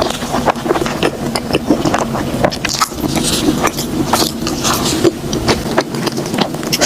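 Close-miked chewing of a big soft pineapple bun: irregular wet mouth clicks and smacks, several a second.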